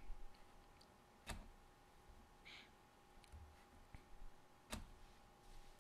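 Near silence with two faint computer mouse clicks about three and a half seconds apart, over a faint steady hum.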